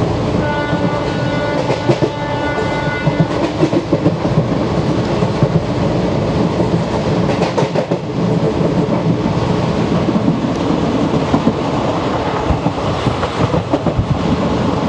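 A WAP4 electric locomotive's horn sounds one steady blast of about two and a half seconds, starting about half a second in, heard from the ICF coach coupled right behind it. Under and after it the coach's wheels clatter steadily over rail joints as the train runs.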